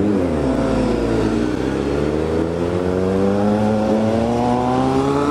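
Motorcycle engine accelerating hard: the pitch drops briefly in the first second, then rises steadily for about four seconds as it pulls.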